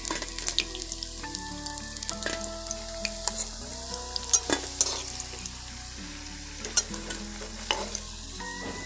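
Jackfruit fritters sizzling in shallow oil in a metal kadai, a steady hiss with sharp crackles. A metal spatula clicks and scrapes against the pan as it turns the fritters and lifts them out.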